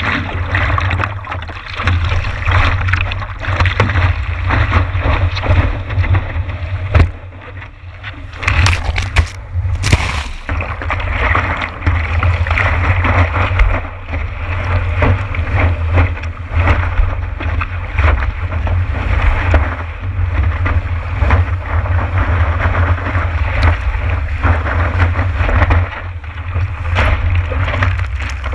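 Water rushing and splashing against the nose of a stand-up paddleboard and a board-mounted action camera, with heavy low wind and water buffeting on the camera's microphone. It is steady and loud, with a short lull about seven seconds in, then a few sharp splashes.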